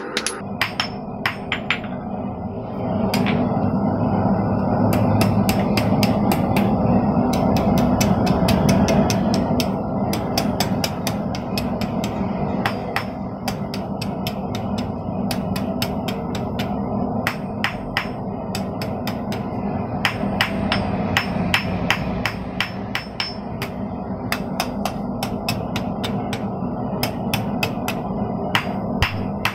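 Blacksmith's hammer striking a hot half-inch square steel bar on an anvil while forging a J hook, in a steady run of blows about two to three a second with short pauses. A steady low rushing noise runs underneath and is louder from about three to nine seconds in.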